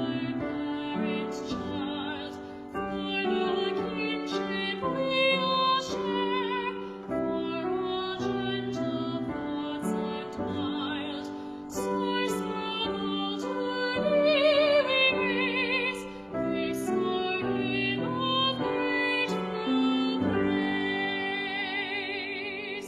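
A woman singing a slow hymn with wide vibrato, with piano accompaniment.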